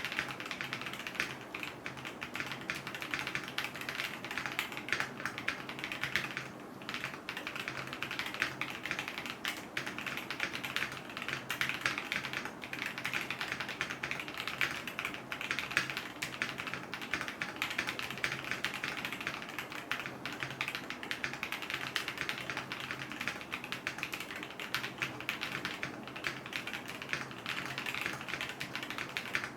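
Mechanical keyboard being typed on in a fast, continuous stream of keystrokes, with a brief pause about six and a half seconds in.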